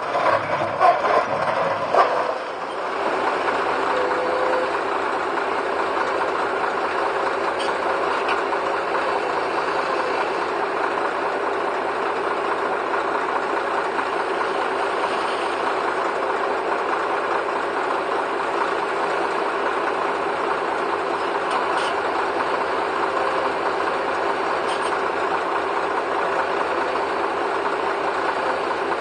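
Diesel engine of a Liebherr 944 crawler excavator running steadily. A few loud irregular knocks come in the first two seconds, then the engine runs evenly.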